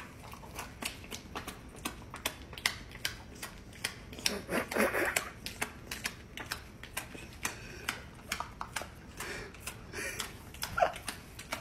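Dog chewing and smacking its mouth on a slice of bread with a spread, making a quick irregular series of sticky clicks and smacks.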